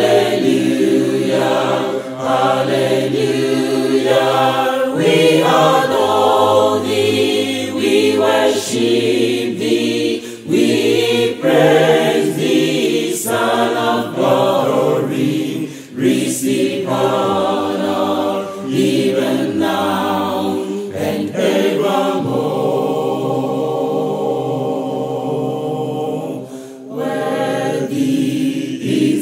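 Choir singing a worship song.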